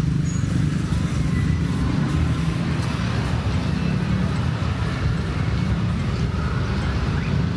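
Road traffic: a steady low rumble of vehicles running along a busy street.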